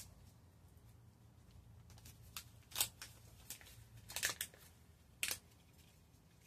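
A few short, sharp clicks and rustles of small craft supplies being handled, a container of diamond dust metallic powder being got out, scattered through the middle, the loudest about three and four seconds in.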